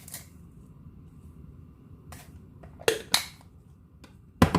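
A spoon tapping against kitchenware while seasoning powder is spooned in: a few sharp clicks, two close together about three seconds in and a louder knock near the end.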